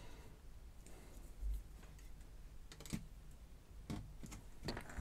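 Faint, irregular clicks and taps of a small screwdriver on the screws and metal case of a BBC Micro power supply as the earth bonding screws are worked, screws that are held fast by thread lock. A low thump about one and a half seconds in.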